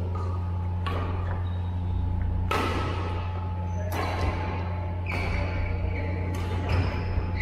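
Badminton rackets striking a shuttlecock in a doubles rally: several sharp hits, about one every second and a half, echoing in a large hall. Short squeaks of shoes on the court mat come after some of the hits, over a steady low hum.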